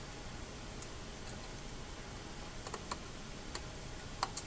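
A few faint, scattered metal clicks of a screwdriver working a side plate screw into a Penn 155 Beachmaster reel, the screw turning stiffly because rechroming runoff got into the crosspost threads. Low steady room hiss underneath.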